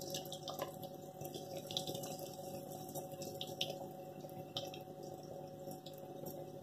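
Hot oil in a kadai bubbling and sizzling around a breadcrumb-coated potato lollipop as it deep-fries. The sound is steady, with scattered small crackles.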